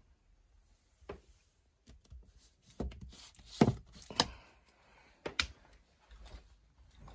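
Handling noise: about half a dozen light knocks and thumps with faint rustling between them, as a hand moves the phone and handles things close to it. The loudest knocks come in the middle.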